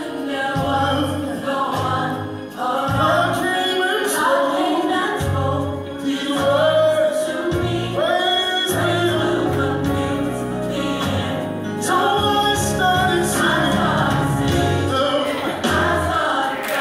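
Gospel song: several voices singing over a steady bass line.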